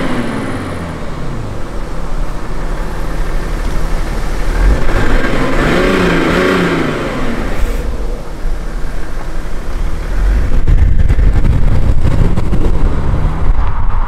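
Mercedes-Benz S400d's twin-turbo inline-six diesel revved several times, its pitch rising and falling with each blip of the throttle, louder and deeper near the end.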